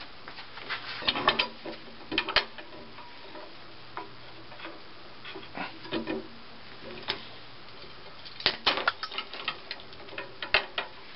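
Homemade steel lever-type black walnut cracker being worked: its pipe handle and jaw clank, a hard black walnut shell cracks under the lever, and nuts and shell pieces clatter on the wooden base. Irregular sharp clicks and knocks, busiest near the start and again after about eight seconds.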